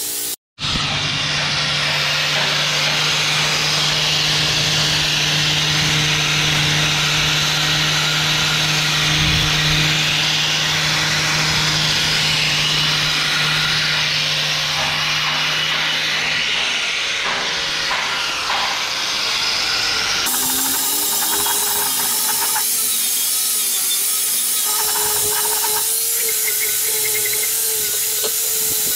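Electric angle grinder with an abrasive disc grinding the steel chassis frame of a Mitsubishi Pajero to take off corrosion: a steady, loud grinding whine. It cuts out for an instant right at the start, and its pitch and tone change about two-thirds of the way through.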